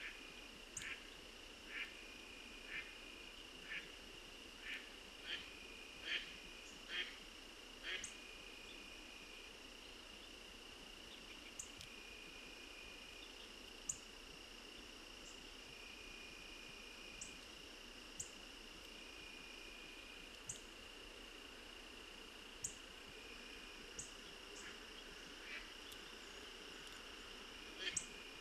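Faint chorus of crickets and other insects, a steady high trill. Over it, short calls come about once a second for the first eight seconds and again near the end, with scattered thin high chirps.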